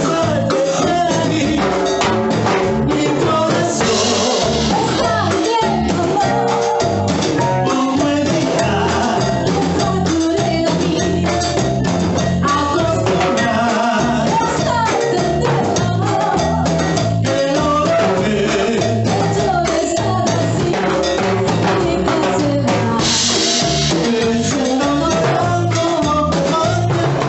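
Live band playing a Latin dance song, with a woman and a man singing into microphones over bass, drums and hand percussion.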